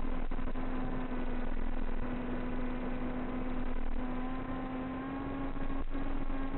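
Steady motor hum over a rushing haze of wind noise, its pitch stepping slightly higher about four seconds in and again near the end.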